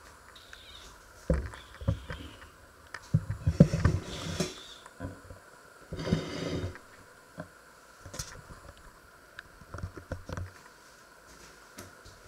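Scattered dull knocks and short rustling handling noises a second or two apart, from a handheld camera being moved and things being handled on a wooden kitchen counter.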